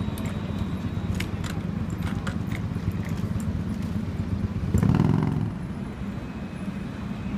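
Steady low rumble of city traffic and trams on a street-level line, with a few light clicks in the first seconds and a brief louder pitched rumble of a passing vehicle about five seconds in.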